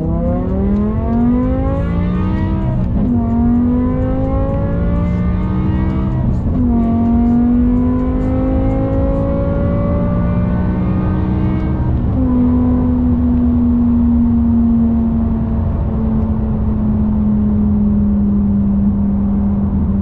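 BMW M6 E63's 5.0-litre V10 engine under hard acceleration, heard from inside the cabin. The pitch climbs and drops sharply three times as it shifts up through the gears, then settles to a steady cruise that fades slightly in pitch.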